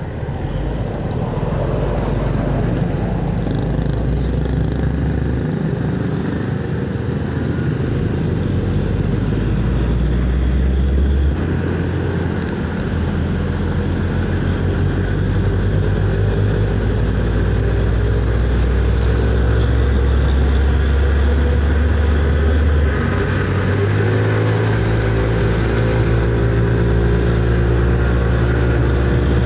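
Motor scooter running at road speed, with engine hum, wind and tyre noise, and large trucks running close alongside. The engine note shifts a few times as the ride slows and picks up again.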